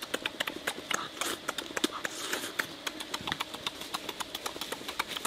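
Close-up eating sounds: wet lip smacks and chewing clicks, several a second and irregular, as fish is eaten by hand.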